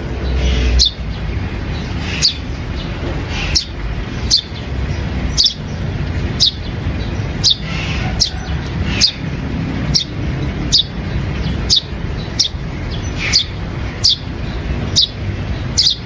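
A small caged songbird chirping: single short, high chirps repeated about once a second.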